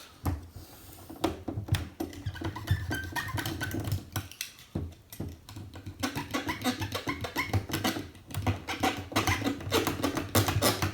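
Music with a percussive beat.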